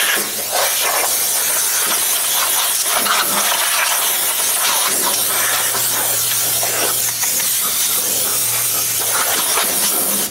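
Compressed-air blow gun hissing steadily as it blows sawdust out of the open underside of a CNC carving machine, then cutting off.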